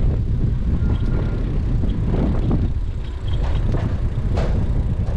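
Steady low rumble of wind buffeting a bike-mounted action camera's microphone, mixed with tyre noise on pavement, with scattered small clicks and rattles from the riding bicycle.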